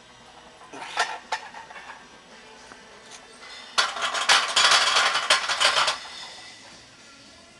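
Metal clanking from a loaded barbell and its iron plates against a steel squat rack: a couple of sharp clinks about a second in, then a loud, dense rattle of metal on metal for about two seconds in the middle, as the bar is set back in the rack.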